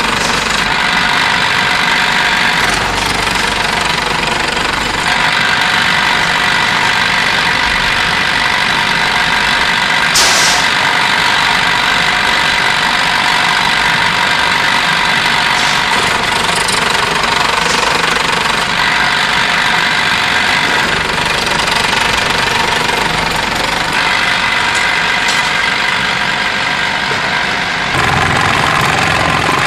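Power sheet-metal shear with a reciprocating blade running steadily, chopping rapidly through steel sheet as a shovel blank is cut to shape. One sharp click about ten seconds in, and the sound turns deeper near the end.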